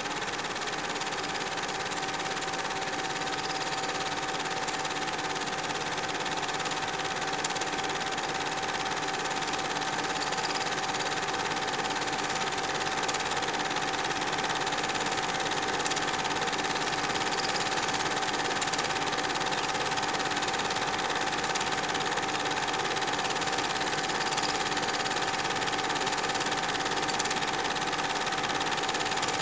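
Film projector running with a steady mechanical whir and a constant high hum, the sound of a silent home movie being played back for transfer.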